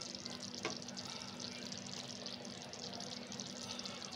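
Korma gravy bubbling and crackling in the pan, its masala fully fried with the oil separated on top. A single soft knock about two-thirds of a second in, as a kebab is set into the gravy.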